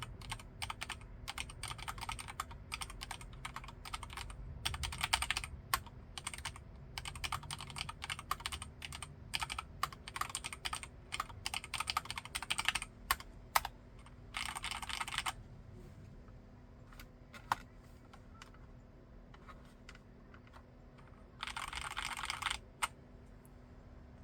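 Filco Majestouch Xacro M10SP mechanical keyboard with Cherry MX Red linear switches being typed on: quick, irregular keystrokes for about fourteen seconds, then a dense run of strokes about a second long, a few isolated strokes, and another dense run of strokes near the end.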